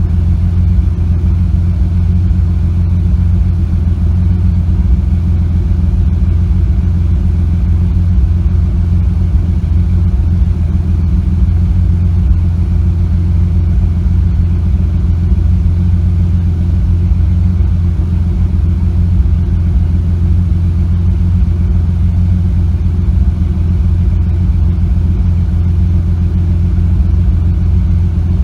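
Supercharged Ford Explorer 4.0L SOHC V6 engine running steadily at an even speed. It has the slight misfire that the owner says began after a nitrous backfire.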